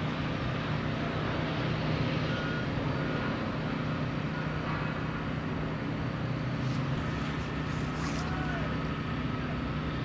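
Heavy construction machinery running, a steady low engine hum, with a faint high tone that comes in briefly and then holds through the second half. There are a few faint clinks in the second half.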